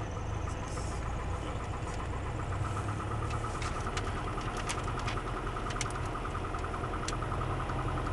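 Single-engine Piper PA-28 Archer III's four-cylinder Lycoming engine and propeller running steadily at low power on final approach, heard inside the cockpit as an even, pulsing drone. A few short, sharp clicks come through in the middle.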